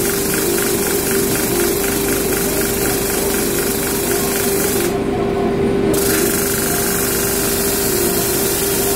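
Electric motor driving a sanding wheel, with a wooden Windsor chair stick pressed and turned against the abrasive: a steady motor hum under a loud rasping hiss of sanding. About five seconds in, the hiss drops away for about a second while the motor hum carries on.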